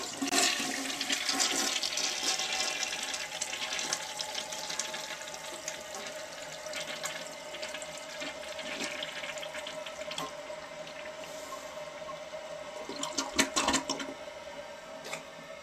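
Toilet flushing: a sudden rush of water into the bowl that eases into a steady rushing with a steady tone underneath as it keeps running. A few knocks near the end.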